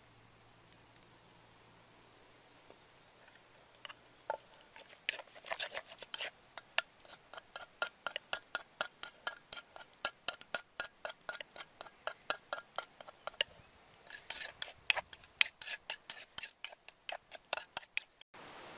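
Metal spoon clinking and scraping against a mortar while stirring a chili dipping sauce. It starts about four seconds in as a rapid run of light clicks, several a second, and stops just before the end.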